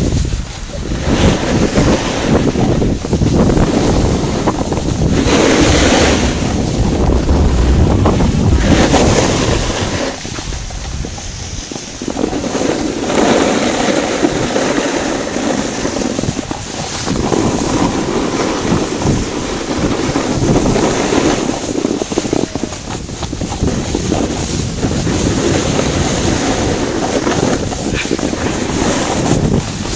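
Wind buffeting the phone microphone of a moving skier, a loud gusting rumble, with the hiss of skis sliding and scraping over snow swelling and fading as they turn.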